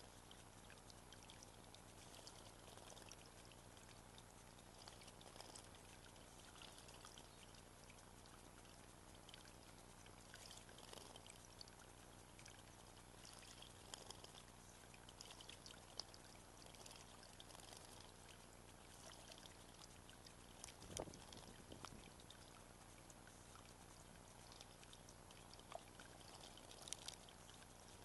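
Faint steady trickle of water in a garden basin, with scattered small splashes and ticks. A low thump comes about three quarters of the way through.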